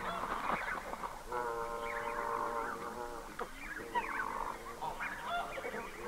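Red-breasted goose calling among other waterfowl calls, many short high calls in quick succession. Two longer, steady calls come in about a second in and again at about four seconds.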